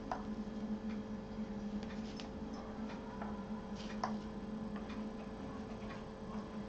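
Cloth handling as a cord is worked through a fabric bag's casing: fabric rustle and a few irregular light clicks, over a steady low hum.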